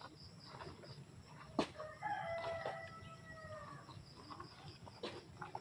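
A rooster crowing once: a single drawn-out call of about two seconds, faint, starting about two seconds in. Just before it comes a sharp click or knock, the loudest single moment, with a weaker one near the end.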